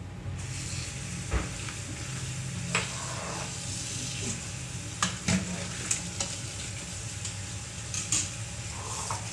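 Tap water running steadily into a sink while romaine lettuce leaves are washed by hand, with a few light knocks and clatters of handling.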